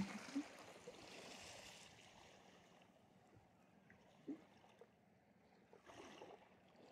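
Near silence: faint waterside ambience, with a few soft knocks, one just after the start and one about four seconds in.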